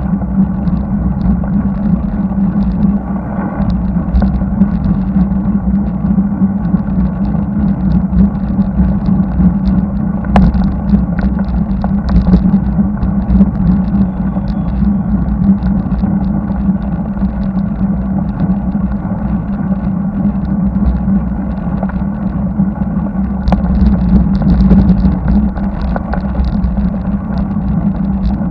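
Steady, muffled wind and road noise on a bicycle-mounted camera riding along a highway, with passing car traffic, louder for a few seconds near the end as a car comes alongside.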